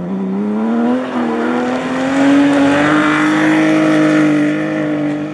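BMW 3 Series rally car's engine pulling hard at high revs. It rises in pitch over the first couple of seconds with a brief dip about a second in, then holds high and steady.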